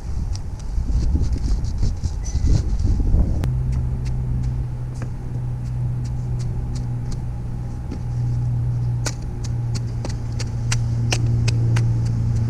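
A steady low engine hum sets in about three seconds in and cuts off abruptly at the end. Over it come scattered sharp clicks and taps of hand tools working wet concrete in a wooden form.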